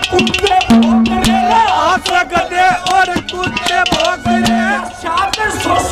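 Live Haryanvi ragni: a man singing into a microphone with gliding, ornamented phrases over steady rhythmic percussion.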